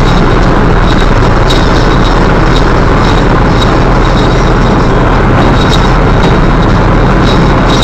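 Steady road and engine noise inside a Citroën Berlingo cruising at motorway speed, picked up loud by the dashcam's microphone. Light ticks come every half second to second.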